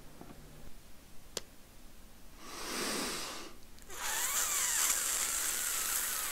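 A click, then a perfume atomizer spraying: one hiss of about a second, then a longer, louder hiss of over two seconds.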